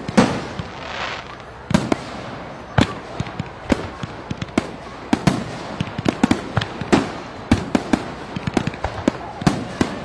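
Fireworks going off: sharp bangs at irregular intervals, sometimes several in quick succession, over a steady rushing background.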